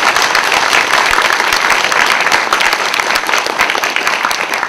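Audience applauding steadily, the clapping beginning to thin out near the end.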